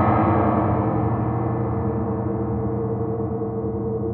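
Ambient drone music of steady held tones, swelling around the start and slowly growing duller.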